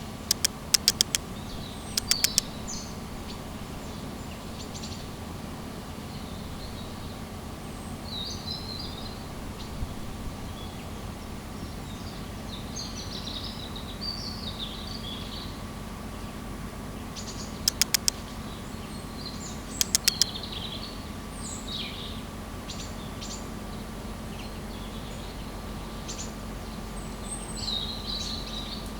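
Several small birds chirping and singing, in short scattered phrases, over a steady background hiss. Four times, a quick group of three or four sharp clicks stands out as the loudest thing.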